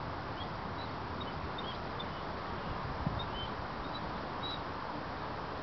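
Hovawart dog whining in short, faint, high-pitched squeaks, about a dozen of them, at a cat it has spotted above. A single dull knock about three seconds in.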